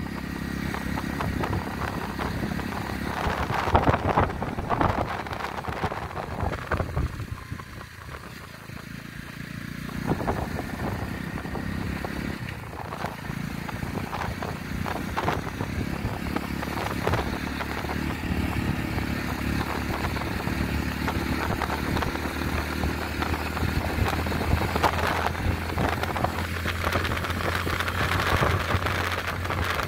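Motorcycle engine running steadily on the move, with wind and road rumble on the microphone and scattered knocks.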